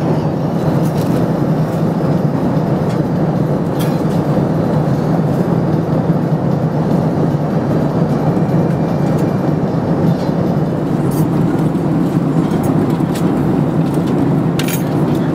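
Steady cabin noise of a Boeing 767-300ER airliner in cruise flight: the even rush of engines and airflow heard from inside the passenger cabin, with a few faint clicks.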